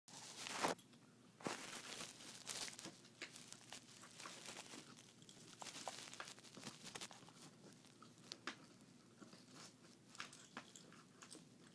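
A teething Thai Ridgeback puppy chewing and biting a flat cardboard box, with irregular crunching and tearing of the cardboard. The loudest crunches come in the first two seconds.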